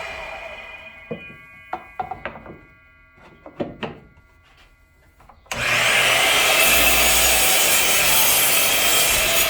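A power saw cutting wooden boards. The saw noise fades at the start, a few knocks of the boards being handled follow, and about five and a half seconds in the loud cutting noise starts abruptly and runs steadily.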